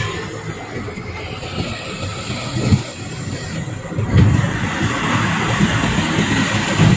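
Road and engine noise inside a moving Suzuki car's cabin, a steady rumble that grows louder about four seconds in as the car enters an underpass.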